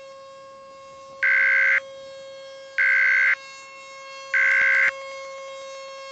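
Three short bursts of EAS SAME digital data tones, the raspy two-tone end-of-message signal that closes an emergency alert. Each burst lasts about half a second, about a second and a half apart. A steady electronic tone hums beneath them.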